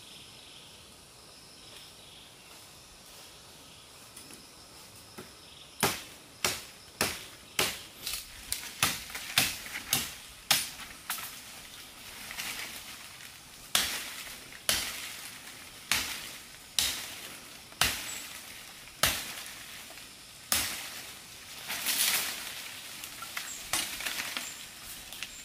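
A series of sharp, short strikes starting about six seconds in, coming quickly at about two a second at first, then more spaced out at about one a second, with short pauses between runs.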